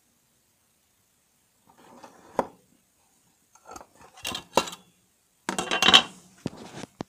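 Stainless steel crinkle cutter slicing the last bar off a loaf of soap in a metal soap cutting box, the blade and box clicking and clanking: a sharp knock about two and a half seconds in, a few more around four and a half seconds, and the loudest metal clatter about six seconds in.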